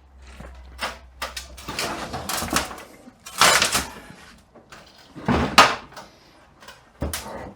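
A 42RE automatic transmission being handled on a workbench: a string of knocks and scrapes, metal on the bench, the loudest about three and a half and five and a half seconds in.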